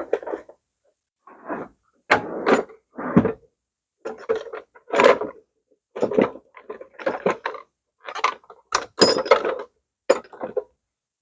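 Rummaging through tools and parts: a string of short knocks, clatters and scrapes of hard objects being moved and set down, in about a dozen separate bursts with dead silence between them.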